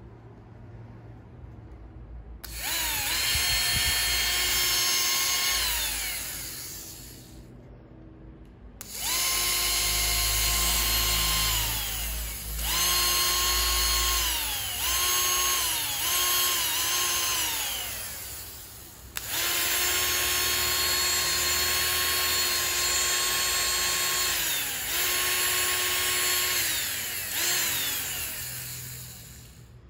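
Bare RS550 brushed DC drill motor, out of its housing and powered from a bench supply, spinning up in about eight separate runs, from half a second to several seconds long, with a steady high whine. After each run the whine falls away in pitch as the motor coasts down.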